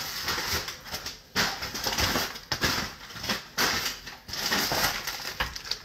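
Cardboard packing being pulled out of a shipping box and handled, with irregular rustling, scraping and crackling and a few sharper knocks.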